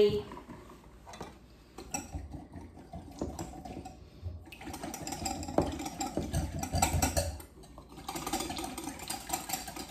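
Wire whisk beating a vinaigrette in a glass bowl: a rapid, steady clicking and rattling of the wires against the bowl, getting going about two seconds in, with a short pause near the end.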